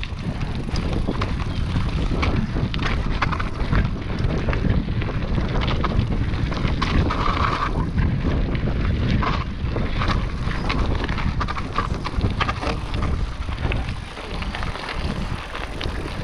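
Mountain bike ridden over a rocky dirt and gravel trail: wind buffeting the rider-mounted microphone, with the tyres and bike rattling and many short sharp clicks and knocks from stones underneath.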